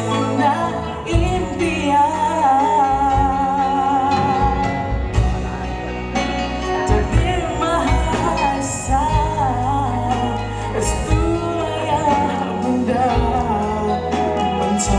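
Male singer performing with band accompaniment, holding long notes with wide vibrato.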